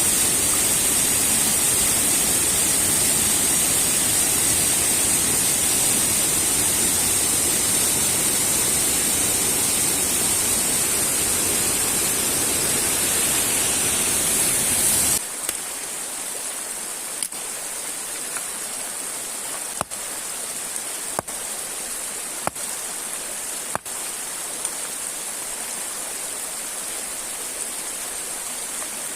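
Waterfall water rushing loudly and steadily. About halfway through it cuts abruptly to a quieter flow of river water, with a few sharp clicks over it.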